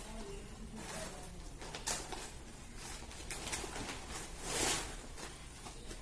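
Plastic garment packets rustling and crinkling as they are handled, in short swishes with the loudest about four and a half seconds in.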